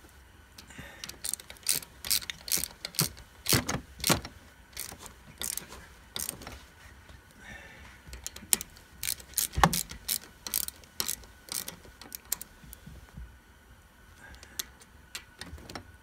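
Hand socket ratchet clicking in short runs as bolts on a short-throw shifter are tightened, with metal parts clinking between strokes. The clicks come in uneven clusters, the loudest about nine and a half seconds in, and thin out near the end.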